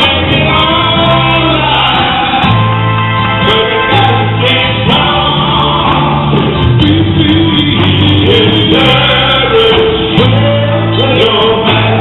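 Gospel group singing with a band, a strong bass line under several singing voices.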